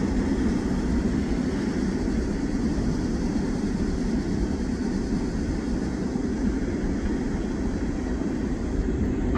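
Freight train of covered hoppers and tank cars rolling along the track: a steady rumble of wheels on rail.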